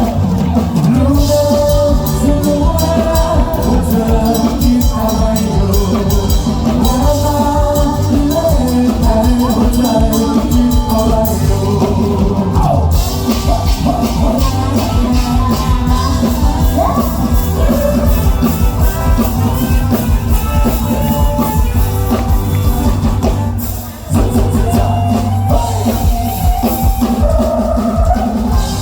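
Live amplified band music with a singer over a steady drum-kit beat. It breaks off briefly about 24 seconds in, then the band comes back in.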